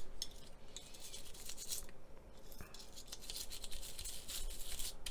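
Quick scratching strokes of a small tool scrubbing paint off a plastic scale-model part, chipping the top coat over a chipping-fluid layer. The strokes stop briefly about two seconds in, then start again, denser.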